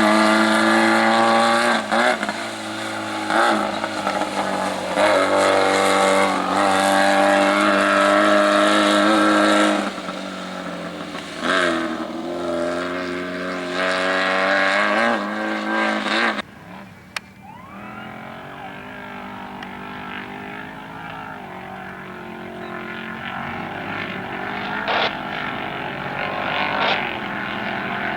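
Off-road race car engine running at high revs, holding a steady pitch with several brief dips. About sixteen seconds in it cuts off suddenly to a quieter, fainter engine sound.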